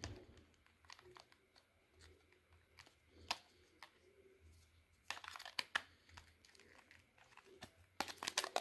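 Faint plastic clicks and scrapes from an Audiovox CDM-9100 phone's battery pack and battery cover being handled. There is a sharp click about three seconds in, and bunches of clicking around five and eight seconds in.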